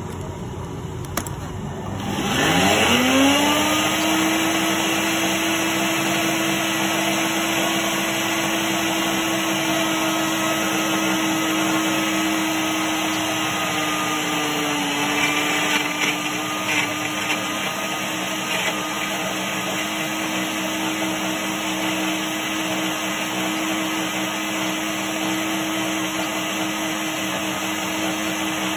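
Philips ProBlend 6 3D jug blender starting about two seconds in, its motor whine rising quickly to a steady pitch. It then runs steadily, blending watermelon chunks and ice cubes into juice, with a slight dip in pitch about halfway through.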